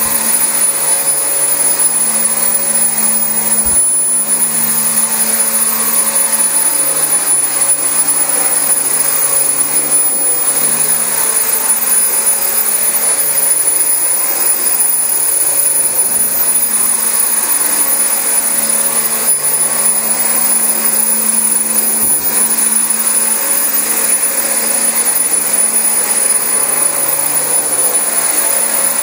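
Dyson DC25 upright vacuum cleaner running steadily over carpet: a constant rush of motor and airflow with a thin, steady high-pitched tone.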